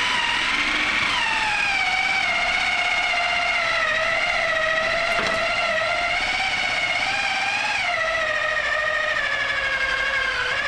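Cuisinart Complete Chef food processor's motor running with a cutting disc fitted, a steady high whine whose pitch dips twice.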